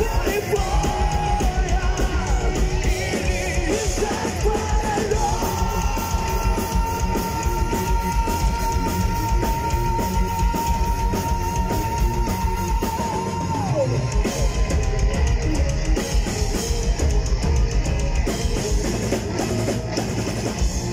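Heavy metal band playing live: distorted electric guitars, bass guitar and drum kit, with a singer holding one long high note for several seconds that slides down about halfway through.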